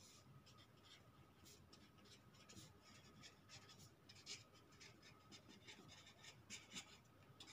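Marker pen writing on paper: faint, scratchy handwriting strokes coming in short runs.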